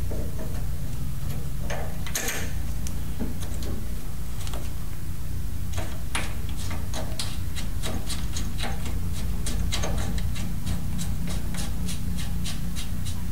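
Proofmeter drive cable nut being threaded by hand onto the tractor's hydraulic pump: a few scattered ticks, then a run of light clicks at about three a second from about halfway in, over a steady low hum.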